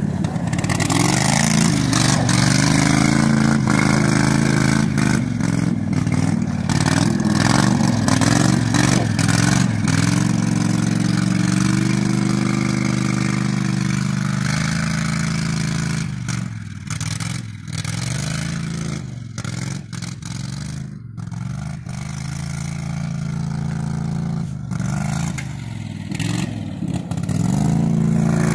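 Engine of a Toro utility vehicle revving hard as it is driven around and slid on snow. The pitch swings up and down with the throttle, and the sound fades somewhat in the middle as the vehicle moves away, then grows louder again near the end.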